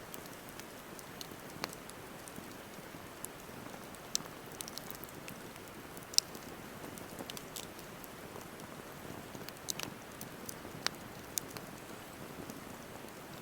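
Wood campfire burning: a steady low hiss with scattered sharp crackles and pops, the loudest about six seconds in.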